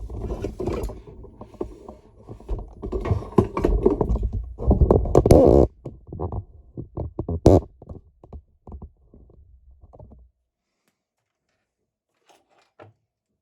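Metal hand file rasping on a key blank to deepen an impression mark, mixed with clicks and knocks of handling. The work stops about ten seconds in.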